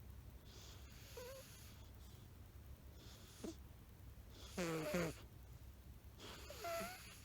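An old cat snoring in its sleep: four snoring breaths, the loudest about halfway through. Some carry a squeaky whistling note that bends in pitch.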